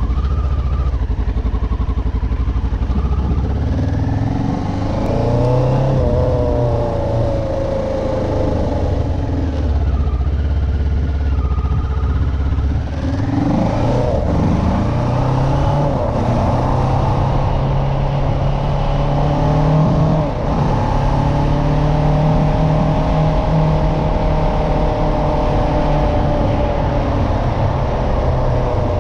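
Motorcycle engine running as the bike rides along a street, its pitch rising and falling as the rider accelerates and eases off.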